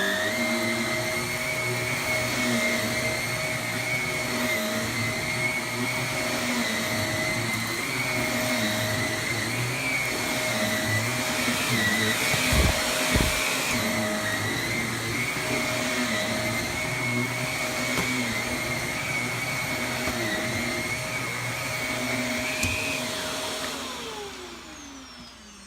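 Shark Lift-Away Deluxe corded upright vacuum cleaner running steadily as it vacuums a rug, with a constant high motor whine. Near the end it is switched off and its motor winds down with a falling whine.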